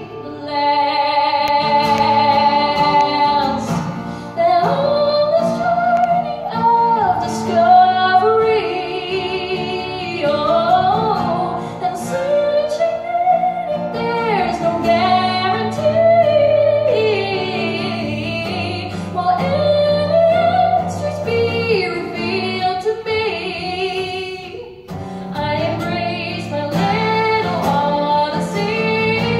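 A woman singing with acoustic guitar accompaniment. Shortly before the end her voice stops and a violin comes in over the guitar.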